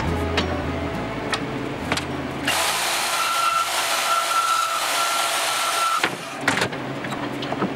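Portable band saw cutting through a metal rod clamped in a vise: a steady whine over the rasp of the blade, starting about two and a half seconds in and cutting off about six seconds in.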